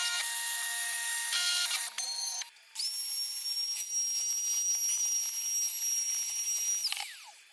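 Background music for about two seconds, then an electric spindle motor, most likely the CNC router's, spinning up to a steady high-pitched whine, held for about four seconds and winding down with a falling pitch near the end.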